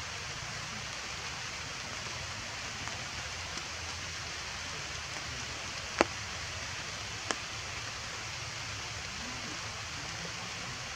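Steady rain hissing on forest foliage, with a few sharp taps, the loudest about six seconds in and a smaller one a little over a second later.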